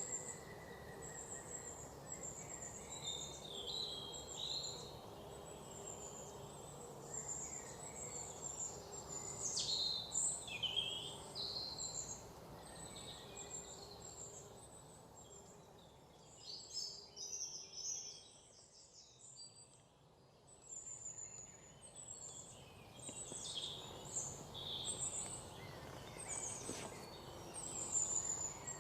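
Many birds chirping and whistling in a forest morning chorus, short high calls overlapping, some sliding down in pitch, over a faint steady background hiss. The calls thin out briefly about two-thirds of the way through.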